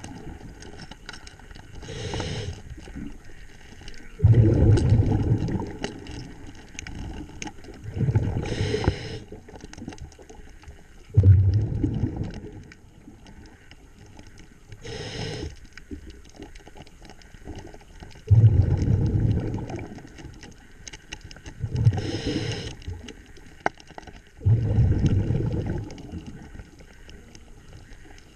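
Scuba diver breathing through a regulator underwater: a short hiss with each inhale and a low bubbling rumble with each exhale, repeating every few seconds.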